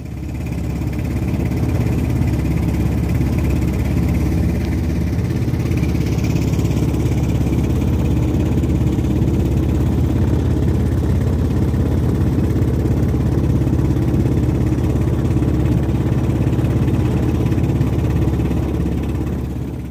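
A motor running steadily at an unchanging speed, a loud low drone that fades in at the start and fades out near the end.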